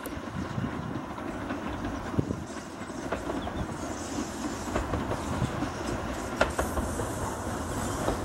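BR Standard 4 steam tank locomotive and its coaches approaching, wheels clattering over the rail joints with scattered sharp clicks, getting gradually louder.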